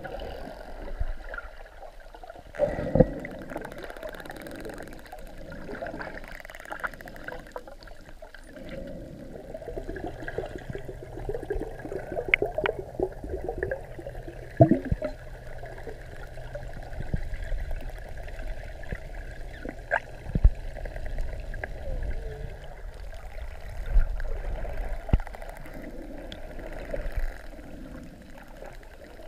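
Underwater sound: a steady wash of water with bubbling, sharp clicks now and then, and faint gliding whistle-like sounds, fitting wild dolphins vocalising close to the camera.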